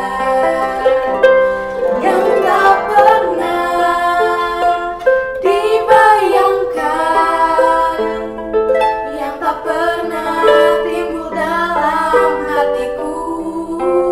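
Children's worship song: singing over instrumental accompaniment.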